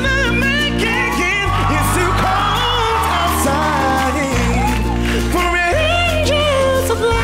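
A male singer belting a pop-soul song into a microphone, with vocal runs that rise and fall, over a band backing. The bass line holds each note for a second or two before changing.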